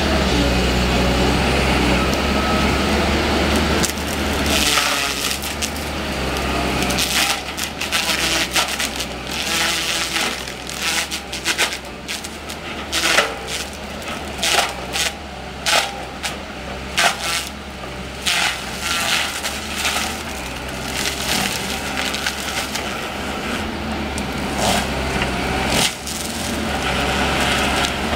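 Caterpillar 315D excavator's diesel engine running with a hydraulic disc mulcher head spinning. From several seconds in, the disc chews into brush and saplings, with many sharp cracks and splintering of wood over the steady machine drone.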